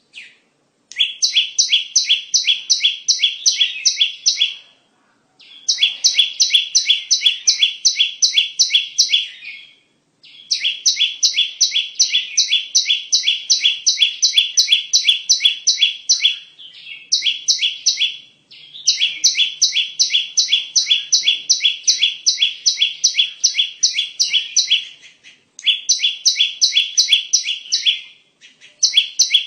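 Prinia (perenjak) song used as a bird-lure call: fast runs of sharp, evenly repeated notes, about four a second, in phrases of several seconds with short breaks between them.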